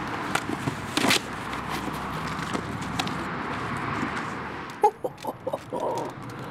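Steady outdoor background noise, with a brief loud rustle about a second in as a cardboard sign is handled. Near the end comes a quick string of short clicks and squeaks.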